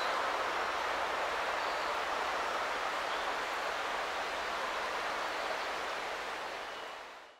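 Steady rushing of a shallow river flowing over its bed, an even hiss with no distinct events, fading out near the end.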